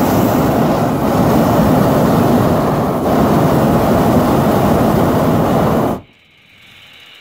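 Hot air balloon's propane burner firing: a loud, steady rushing noise that cuts off suddenly about six seconds in.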